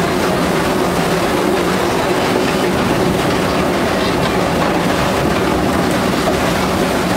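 Theme-park train running on its track, heard from an open-sided passenger carriage: a steady rumble of wheels on the rails with light clatter.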